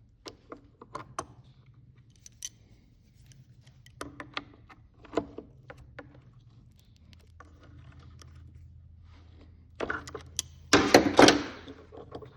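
Crimping pliers and small metal parts being handled while a butt-splice connector is crimped onto a switch wire: scattered light clicks and ticks, then a louder crunching squeeze of the crimp near the end.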